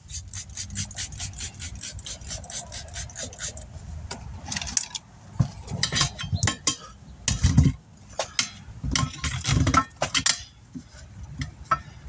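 Steel tire irons clinking and clanking against a steel wheel rim as a tire is levered off by hand, with irregular metal knocks and a few dull thumps. It opens with a quick, even run of clicks lasting about three seconds.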